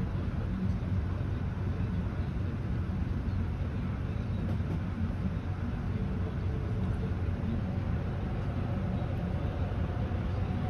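Steady low mechanical hum with a constant background rush and no clear events.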